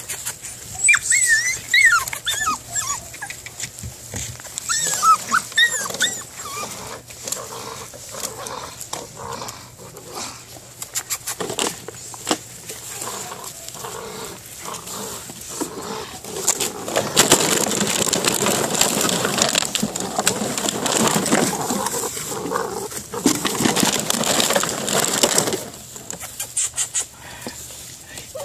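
A six-week-old Belgian Malinois puppy bites and tugs at a rag, giving short high whines that slide up and down in pitch during the first few seconds. From about the middle there is a long stretch of rustling noise lasting about eight seconds.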